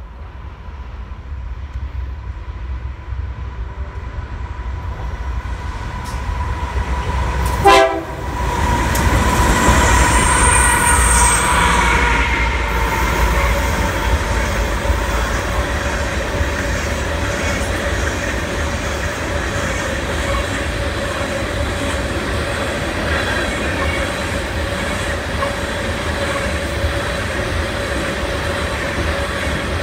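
A BNSF freight train approaches and passes close by, its rumble building as the locomotives near. The locomotive horn sounds a steady chord that dips slightly as the engines go by, about eight seconds in. After that a long string of rock hopper cars rolls past with a steady wheel rumble, a clickety-clack, and a continuous squeal from the wheels.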